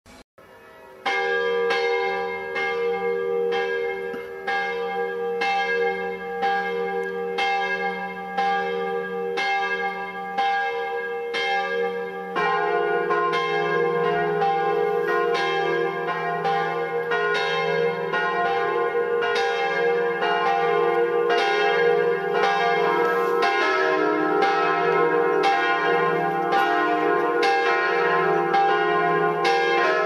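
Church bells swinging and ringing in a Sunday service. A single bell starts striking about a second in, roughly once a second. A second, deeper bell joins at about twelve seconds, and a third comes in near the end, building up the peal.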